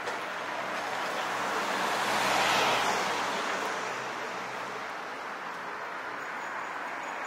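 A car passing along the street, its road noise swelling to a peak about two and a half seconds in and then fading.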